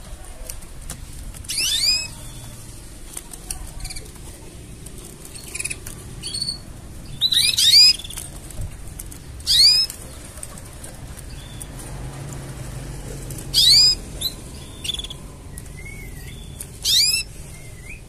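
Canary giving short chirping calls, about six bursts spaced a few seconds apart, each a quick cascade of notes falling in pitch, the loudest about halfway through.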